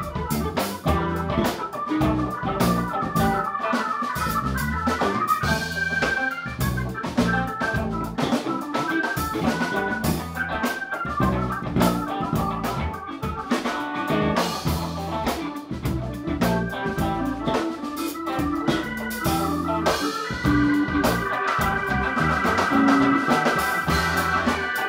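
Live band playing an instrumental passage: an organ sound from a stage keyboard leads over electric bass, drum kit and electric guitar, with organ chords held from about four-fifths of the way through.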